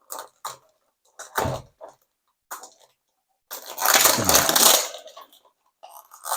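Die-cast toy car packaging being handled and opened: a few short crinkles, then a longer burst of rustling about halfway through that lasts over a second.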